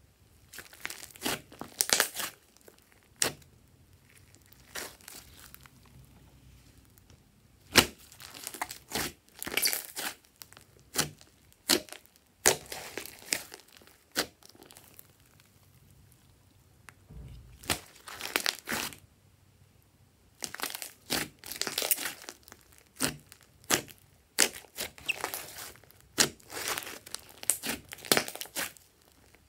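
Hands squeezing and folding a large lump of thick glossy slime: irregular clusters of sticky clicks and pops, with short quiet gaps between squeezes.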